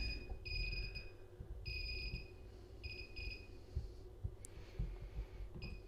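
Faint high-pitched trilling in irregular bursts, each lasting a fraction of a second, over a faint steady low hum.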